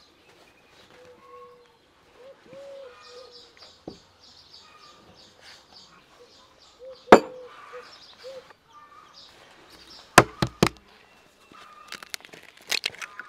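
Birds calling, with short arched calls and a rapid series of high chirps. There is one sharp knock about seven seconds in and three quick knocks near ten seconds, then a cluster of clicks near the end as an egg is cracked into a glass bowl.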